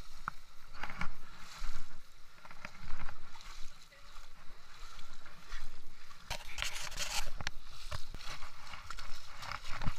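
Feet wading and splashing through shallow, muddy stream water in irregular sloshing steps, with a louder stretch of splashing about two-thirds of the way through.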